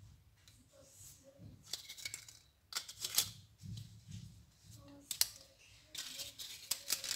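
Small fluted paper sweet cases crinkling and parchment paper rustling as chocolate-coated balls are picked up and pressed into the cases. The sound comes as scattered light clicks and crinkles.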